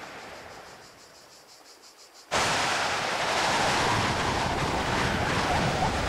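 A fading whoosh, then an abrupt cut about two seconds in to loud, steady rushing air: the wind noise of a paper airplane in fast flight. Near the end, short high chirps begin over the rushing.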